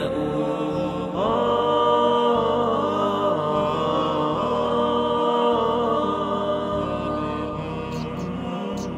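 Background music: a sung Arabic nasheed, a voice holding long drawn-out notes that set in about a second in.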